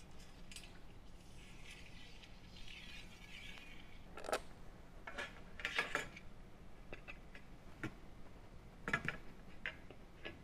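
An aluminium mounting bar being handled and set in place on a rooftop tent's aluminium diamond-plate base: a soft rasp about two seconds in, then a handful of light, separate metal clicks and clinks.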